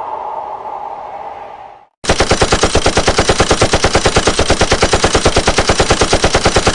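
Automatic machine-gun fire sound effect: one long burst of rapid shots, about ten a second, that starts about two seconds in and cuts off abruptly. Before it, a different sound with a steady tone fades out.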